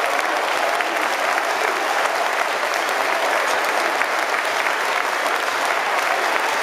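Football crowd applauding steadily: a dense, even wash of many hands clapping across the stands.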